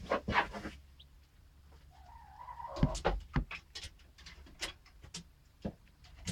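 Chick pecking feed from a bowl: a run of sharp, irregular taps of its beak on the dish, loudest about three seconds in, with a soft, low hen murmur just before.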